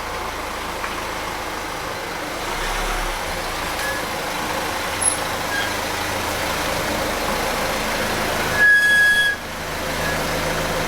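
Steady motor-vehicle noise, with a short high-pitched squeal a little before nine seconds in.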